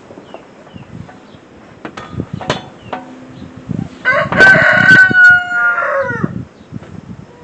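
Rooster crowing once about four seconds in, a long call that drops off at the end. It is the loudest sound here, with a few sharp knocks a couple of seconds before it.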